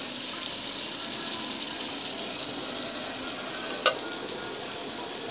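Ground-beef hamburger patties, onions and red pepper frying in a pan, a steady sizzle. About four seconds in there is one sharp clink as the pan's lid is handled.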